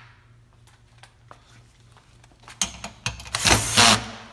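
Cordless drill with a socket running a hex bolt down into the aluminium platen arm: a couple of short spurts, then a loud steady run of about a second near the end. Faint handling clicks come before it.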